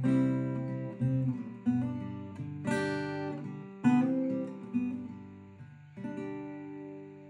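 Background music: acoustic guitar playing chords, struck about once a second, with the last chord ringing out near the end.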